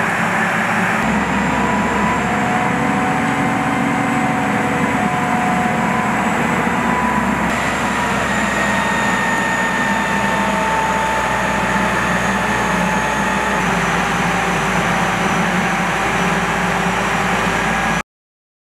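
Crane engine running steadily while it hoists a roller coaster car, with faint drifting whines over the machine noise. It cuts off abruptly near the end.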